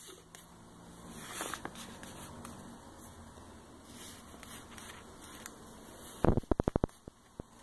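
A hand rubbing and smoothing paper transfer tape over a vinyl decal on a stand mixer's metal body, a soft, uneven papery rubbing. Near the end comes a quick run of about eight sharp ticks in under a second.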